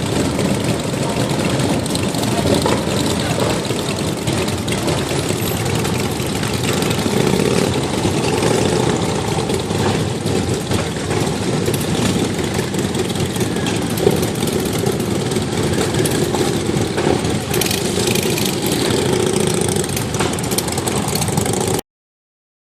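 Several Harley-Davidson V-twin motorcycle engines idling and running together. The sound cuts off suddenly near the end.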